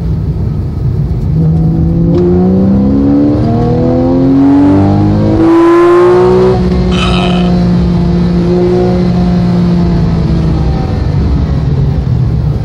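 Porsche engine heard from inside the cabin, pulling at full throttle: its pitch climbs for about five seconds, then levels off and holds steady.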